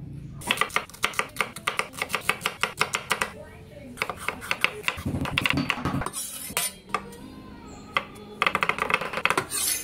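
Hand food preparation: fast runs of sharp scraping and cutting strokes, from cheese grated on a metal grater and a knife slicing onion, pepper and olives on a wooden cutting board, in two bursts with a quieter gap between.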